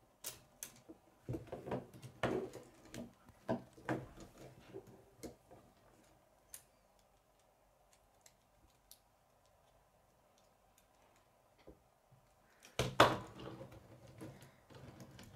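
Plastic K'nex rods and connectors clicking and rattling as they are handled and snapped together: scattered clicks for the first few seconds, a quiet stretch, then a louder clatter about thirteen seconds in.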